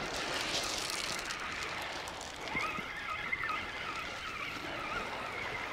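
Steady hiss of surf and wind on the beach, with a faint wavering gull call about halfway through that lasts a couple of seconds.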